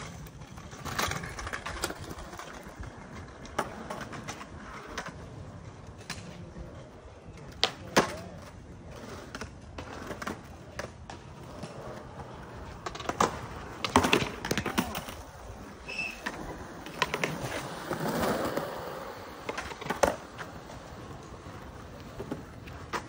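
Skateboards on concrete: wheels rolling, with scattered sharp clacks of boards popping and landing, the loudest a third of the way in, a cluster past the middle and one near the end.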